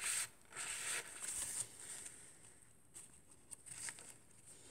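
Paper pages of a thick handmade journal rustling as they are turned and handled: two brushing swishes in the first second and a half, then fainter rustles and small taps.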